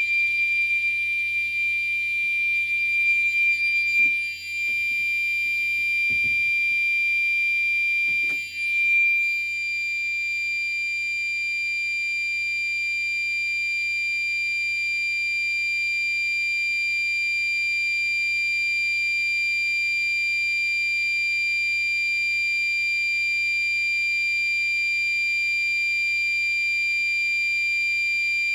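Building fire alarm sounding a loud, continuous high-pitched tone during a fire alarm test. A few soft knocks come in the first several seconds.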